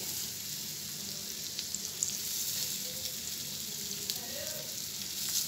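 Chicken kabab patties frying in shallow oil in a pan: a steady sizzling hiss with small crackles.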